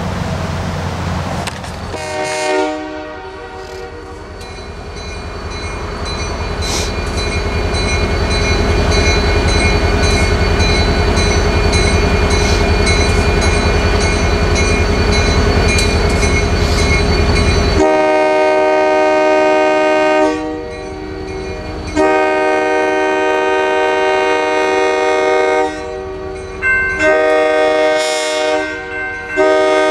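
Diesel locomotive horn sounding for a road grade crossing: one long drawn-out blast over the low rumble of the engine, then, past halfway, louder blasts broken by short gaps.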